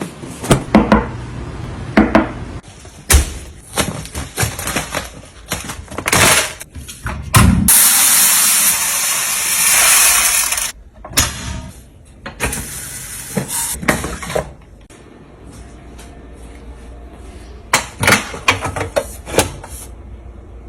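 Food containers, glass jars and packaging being handled and set down while stocking a fridge: a string of knocks and clicks, with a loud hiss lasting about three seconds in the middle. It grows quieter in the last few seconds, with a few more clicks near the end.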